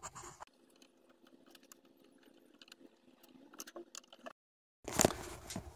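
Small metal clicks and taps from fitting the exhaust pipe and its collar onto a 1.2 hp outboard motor, over a faint steady hum. The sound cuts out just after four seconds, then louder clinks and clatter come in near the end.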